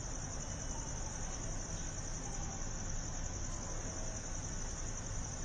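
Steady high-pitched hiss over a low rumble, unchanging throughout, with no distinct animal call or other event standing out.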